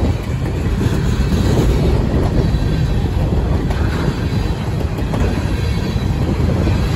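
Empty coal hopper cars of a CSX freight train rolling past close by: a loud, steady rumble of steel wheels on the rails, with a faint high wheel squeal running through it.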